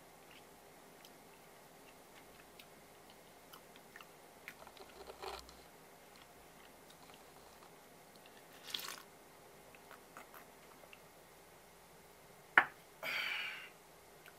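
Faint mouth and handling sounds of someone drinking from a small ceramic cup: a few soft clicks, a short sip, then near the end a sharp knock as the cup is set back down on the wooden counter, followed at once by a short breathy exhale.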